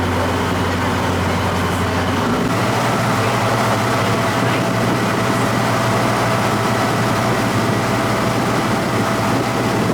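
A resort launch boat's engine running steadily, heard from on board with water and wind noise. About two seconds in, the engine note changes to a different pitch.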